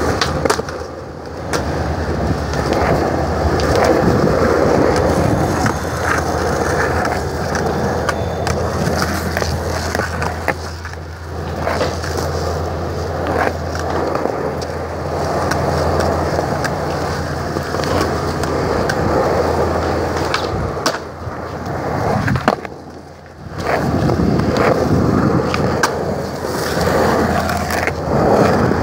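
Skateboard wheels rolling on concrete in a continuous rumble, with scattered sharp clacks. The rumble drops away briefly a few times, most deeply a little after two-thirds of the way through.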